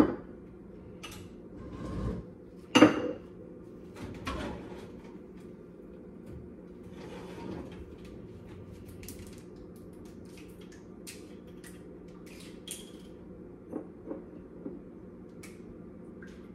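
Pots and kitchen utensils being handled: a few clanks and knocks, the loudest about three seconds in, then scattered light clicks over a steady low hum.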